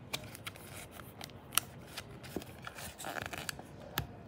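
Paper pages of a handmade flipbook flicking and riffling under the fingers: a run of quick paper clicks and rustles, with sharper snaps about one and a half seconds in and near the end.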